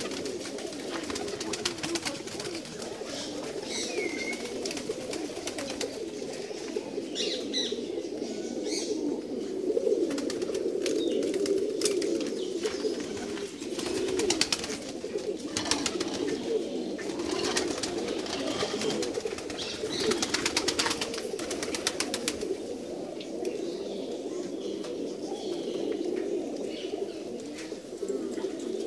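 A loft full of pigeons cooing continuously, many birds at once in an overlapping chorus, with occasional short higher calls.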